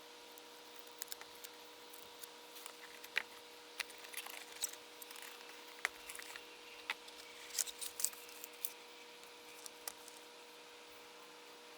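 Box and packaging being handled and opened during the unpacking of a microphone: scattered light clicks, taps and rustles of cardboard and plastic, over a steady faint electrical hum.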